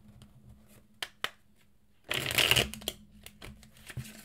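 A deck of tarot cards being shuffled by hand: two light taps about a second in, then a quick, dense flutter of card edges a little after two seconds, followed by softer card rustling and clicks.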